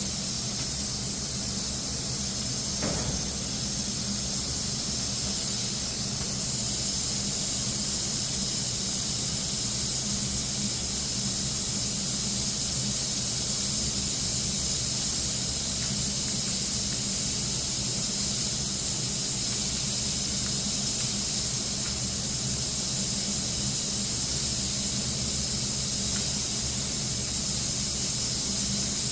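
Spray gun hissing steadily as it sprays Cerakote Elite E-100 Blackout onto stainless steel rifle barrels, a little stronger from about six seconds in. A low steady hum runs underneath.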